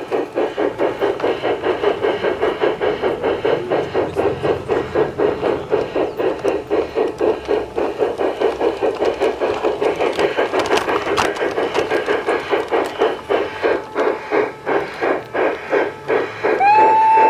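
LGB Mallet G-scale model steam locomotive running with a fast, even steam chuff. Near the end a steady locomotive whistle starts.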